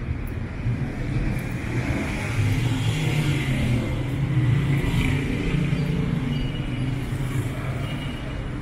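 City street traffic, with a motor vehicle passing close by and growing louder toward the middle before fading again.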